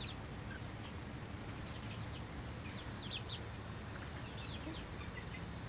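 Young chickens peeping: short, high, falling chirps, often in twos or threes, scattered throughout, over a faint steady hum.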